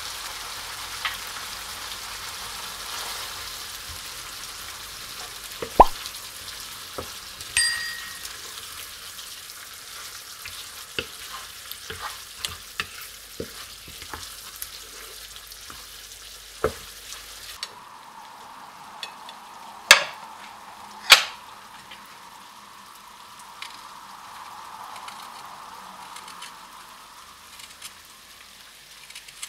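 Chicken curry frying in a nonstick pan: a steady sizzle, with a wooden spatula stirring and knocking against the pan and one short ringing clink. The sizzle cuts off about two-thirds of the way in, and quieter handling sounds follow with two sharp clicks.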